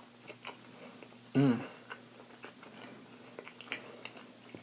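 A person chewing food close to the microphone, with soft wet mouth clicks scattered through, and a short voiced hum about a second and a half in.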